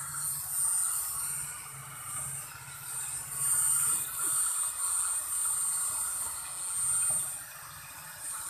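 Handheld hair dryer blowing: rushing air with a steady high whine, swelling and fading several times as it is moved about.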